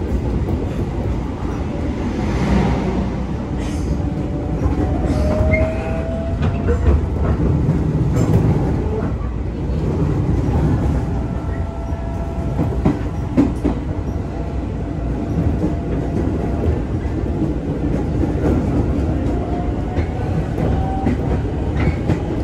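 KRL electric commuter train running on the rails: a steady rumble with scattered clicks, and a couple of brief faint squealing tones from the wheels.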